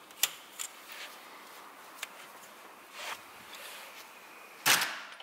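Light clicks and a brief rustle of a gloved hand handling parts among the hoses of a car's engine bay, then one louder, sharp clatter about four and a half seconds in.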